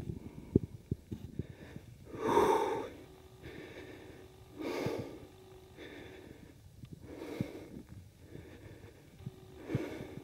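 Heavy breathing close to the microphone: four loud breaths about two and a half seconds apart, the first the loudest, with faint clicks and knocks between them.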